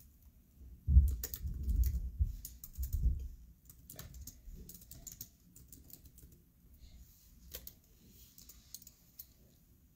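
Typing and clicking on a laptop keyboard and trackpad, scattered light clicks. About a second in there is a heavy thump, followed by low bumps for about two seconds.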